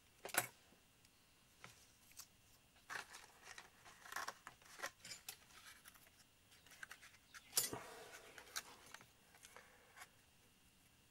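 Hands handling small model-making parts and tools on a workbench: two sharp clicks, about half a second in and again past the middle, with light scraping, rustling and ticking in between.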